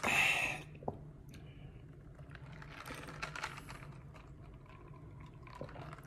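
A man drinking an iced drink from a clear cup: a breathy exhale at the start, then soft sipping and small clicks of ice against the cup, over a steady low hum.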